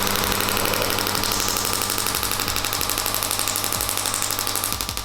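Shockwave therapy applicator firing a rapid, even train of sharp clicking pulses into the patient's back through ultrasound gel, over a steady hum from the unit. The noise is horrendous.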